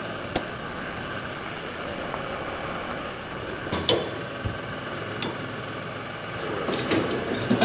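LS compact tractor's diesel engine idling steadily, with a scatter of sharp metal clanks and knocks from the three-point hitch hardware being handled while the bush hog is hooked up.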